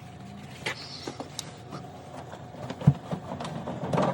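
Handling noises while the inside of a refrigerator is wiped down: scattered light clicks and knocks, with one louder thump about three seconds in.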